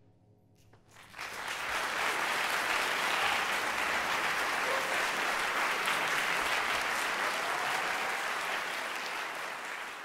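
The last faint ringing of a gong dies away, then the concert audience breaks into applause about a second in, steady and full until it starts to fade near the end.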